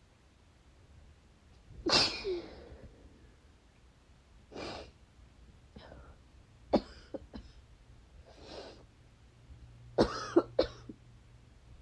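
A person sneezing, sniffling and coughing. There is a loud sneeze about two seconds in, breathy sniffs, and short, sharp dry coughs, and near the end a cluster of loud, sharp bursts comes close together.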